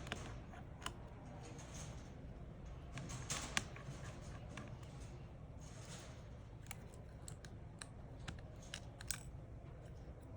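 Scattered light clicks and taps with a few brief swishing scrapes, over a low steady hum: small tools and parts being handled on a phone repair bench.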